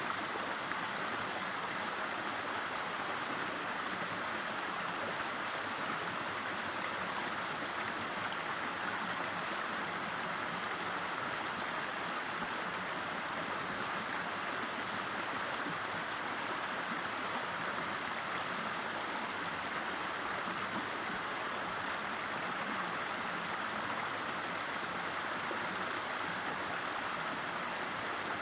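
River water rushing and babbling in a steady, unbroken wash.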